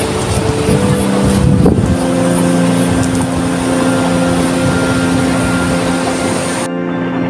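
Background music of long held notes, shifting to a new chord about two seconds in, over a steady hiss that cuts off sharply near the end.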